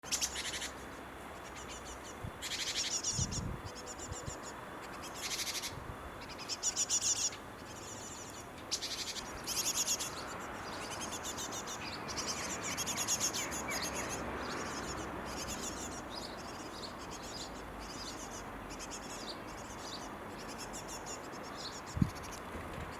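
Young birds in a tree calling in repeated bursts of rapid, high-pitched chirps, typical begging calls of fledglings wanting food from their parents. A single sharp knock near the end.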